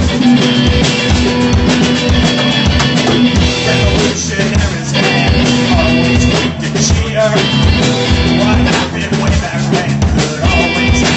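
A live rock band playing electric guitar, bass guitar and drum kit with a steady beat, a male singer singing over it.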